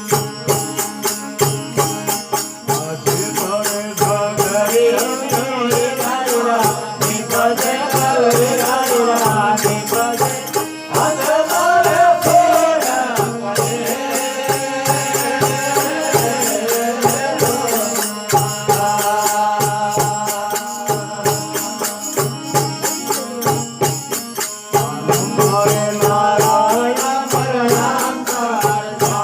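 Instrumental passage of a Rajasthani folk bhajan: a steady drone under a wavering melody line, with a regular beat of sharp percussion strikes.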